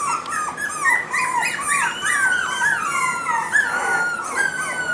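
Young cockapoo puppies whining and yipping in high, falling cries that overlap one another. They are asking to be let out of their pen.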